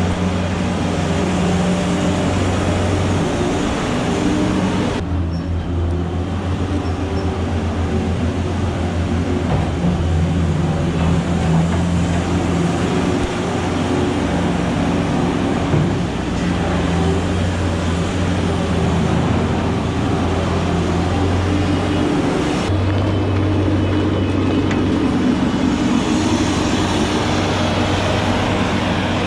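Engine running steadily, with abrupt changes in its sound about five seconds in and again near the end, as where clips are cut together.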